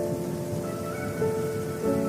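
Slow, soft instrumental music of long held notes that change pitch every half second or so, over a steady sound of falling rain.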